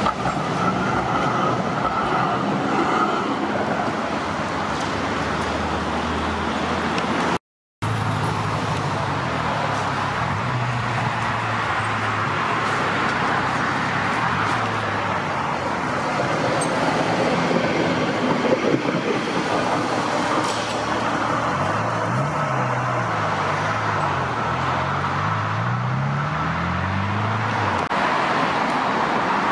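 Steady traffic on a busy road, cars and other vehicles passing, with several engines rising and falling in pitch past the middle. The sound cuts out completely for a moment about seven seconds in.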